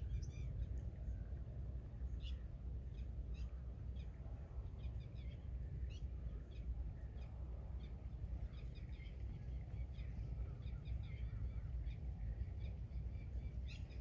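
Small birds chirping in short, scattered calls throughout, over a steady low rumble of outdoor ambience.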